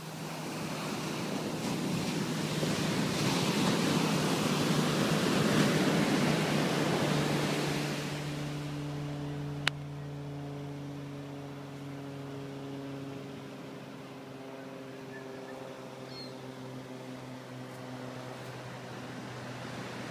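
Ocean surf rushing up the beach, swelling and then fading over the first eight seconds. A steady vehicle engine hum then carries on underneath, with one sharp click about halfway through.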